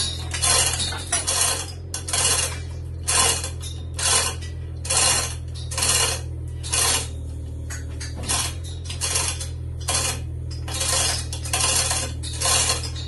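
Manual chain hoist being worked by hand: the chain links rattle and clink through the block in regular bursts, roughly one pull a second, as a heavy oak beam hanging in the chains is moved. A steady low hum runs underneath.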